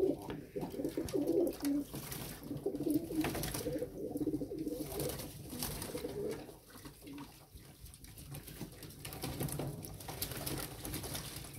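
Domestic pigeons cooing in a loft, several birds overlapping in repeated low coos, with scattered splashes and rustles from birds bathing in a water tub.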